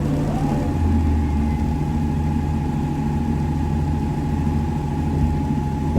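Wood-Mizer portable band sawmill running: a steady engine drone with a high whine that rises briefly at the start, then holds steady.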